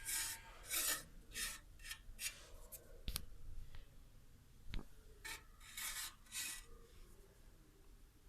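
A series of short rubbing strokes, about a dozen over six seconds, with a couple of sharp clicks in between.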